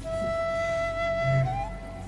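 Background music: one long held note from a melodic instrument, bending up slightly near the end.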